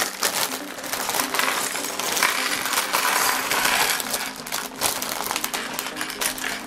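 Plastic LEGO bricks pouring out of torn-open polybags and clattering onto a hard tabletop in many small clicks, mixed with the crinkle of the plastic bags being shaken and torn.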